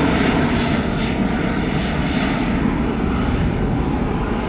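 Twin CFM56-7B turbofans of a Boeing 737-700 at takeoff thrust as the airliner climbs away: a loud, steady jet rumble that slowly fades, its hiss dropping off first.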